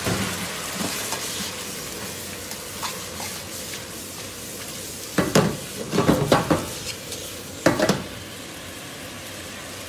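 Spaghetti and potatoes sizzling in a frying pan with starchy pasta cooking water, stirred with a metal fork and tossed to emulsify into a creamy sauce. The fork and pan clatter loudly in a run of knocks from about five to nearly seven seconds in, and once more about a second later.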